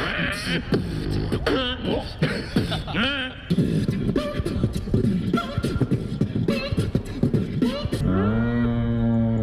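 Human beatboxing into a handheld microphone, amplified through a small speaker. It opens with warbling, sliding vocal sounds, breaks into a fast beat of clicks and bass thumps about three and a half seconds in, and ends on a long held low note.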